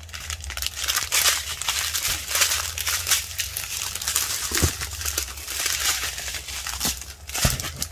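Clear plastic zip bags of diamond painting resin drills crinkling and rustling as they are handled and laid out, with a couple of soft knocks about halfway through and near the end.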